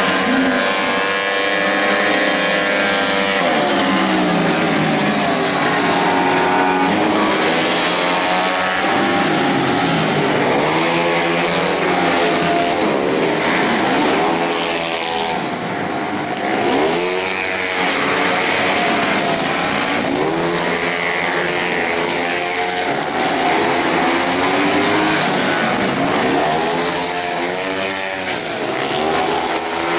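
Several racing motorcycles at full throttle, their engine notes climbing through the gears and dropping away as they pass one after another, often overlapping.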